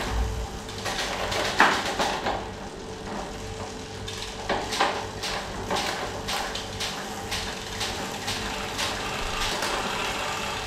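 Road bike's Shimano 105 drivetrain being turned by hand during gear adjustment: a low pulsing hum with an irregular string of clicks and knocks from the chain and gear changes.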